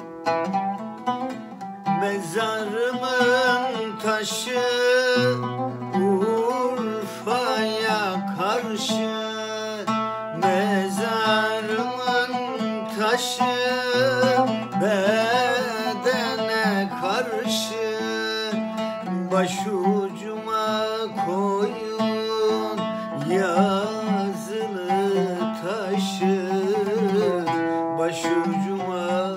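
Oud played solo with plucked strings, with a man singing a Turkish folk song over it, his voice coming in about two seconds in with a wavering, ornamented line.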